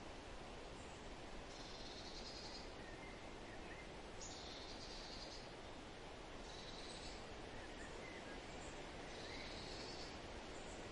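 Outdoor wildlife ambience: a high, buzzy trilling call about a second long repeats every two seconds or so, with a few soft chirps, over a steady faint hiss.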